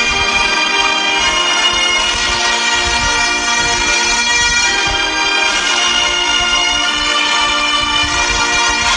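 Bagpipe music: a steady drone held under a chanter melody whose notes change every second or two.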